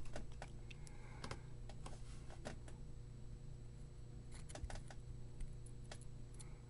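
Faint, scattered small clicks and taps from soldering work on a circuit board, a few close together near the middle, over a steady low hum.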